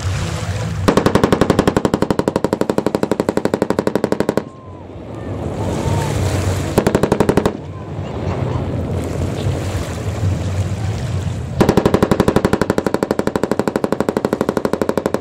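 Bursts of rapid automatic fire from a machine gun on a coast guard patrol ship: a long burst about a second in, a short burst midway, and another long burst near the end. A low steady rumble fills the gaps between bursts.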